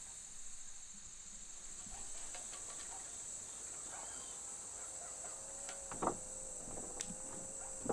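Crickets chirring steadily in a high-pitched band. In the last couple of seconds a few sharp knocks come through, and a steady held tone sets in.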